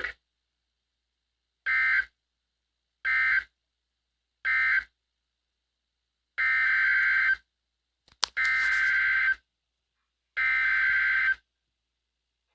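Emergency Alert System SAME digital data bursts on NOAA Weather Radio. First come three short bursts, the end-of-message code closing the previous broadcast. Then come three longer bursts, the header code that opens a severe thunderstorm warning, with a sharp click just before the fifth burst.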